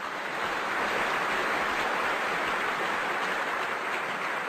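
Large audience applauding, swelling up over the first second and then holding steady.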